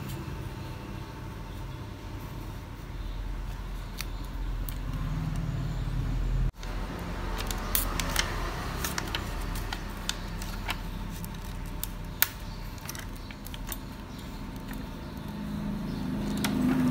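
Scattered small clicks and ticks, with light scraping, as a smartphone display is pried and peeled off its adhesive, over a steady low hum. The clicks grow denser after the middle.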